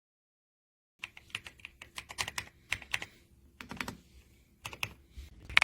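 Typing on an RK Royal Kludge R75 gasket-mounted 75% mechanical keyboard: a run of irregular keystrokes that starts about a second in and cuts off abruptly at the end.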